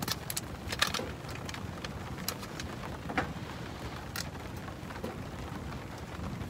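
Scattered sharp clicks and rustles of a small carton and camp gear being handled, most of them in the first second, over a steady hiss.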